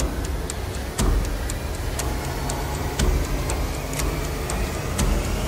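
Clock ticking steadily, about two ticks a second with a louder tick every second, over a low steady rumble.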